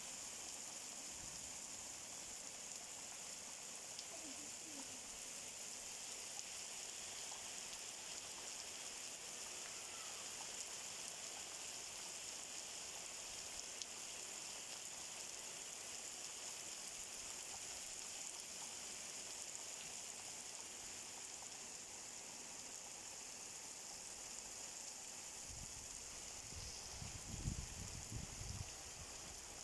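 Steady rainfall: an even hiss of rain coming down, with a few low thumps near the end.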